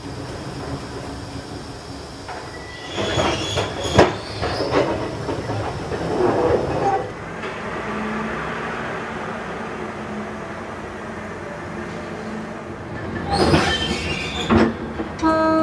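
Tram wheels squealing and clattering over curved depot track and points as an old tram rolls through the yard, with a sharp knock about four seconds in and a steady low hum in the middle stretch. A short horn-like tone starts right at the end.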